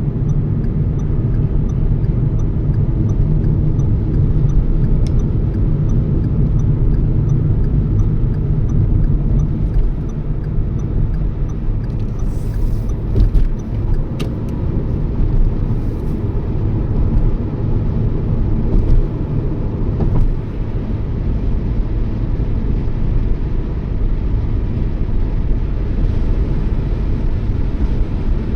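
Toyota Yaris driving at steady speed: continuous low rumble of road and engine noise, with a few faint clicks about halfway through.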